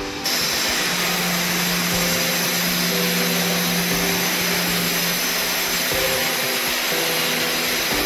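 Construction machinery running steadily inside a railway tunnel being built: a loud, even rushing noise like a blower or power tool, starting abruptly just after the start, with faint steady tones underneath.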